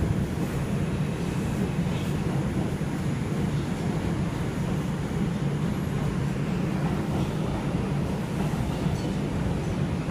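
Steady low rumble and rush of an R142 subway car running at speed through a tunnel, heard from inside the car.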